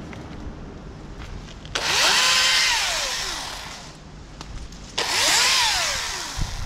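Husqvarna T536LIXP battery chainsaw triggered twice: each time the motor and chain spin up quickly to a high whine, hold briefly, then wind down as the trigger is released.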